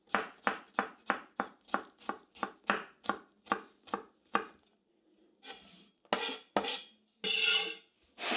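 Chef's knife chopping garlic cloves on a bamboo cutting board: sharp knocks at about three a second for some four seconds. Then a few longer scrapes as the blade gathers the chopped garlic on the board.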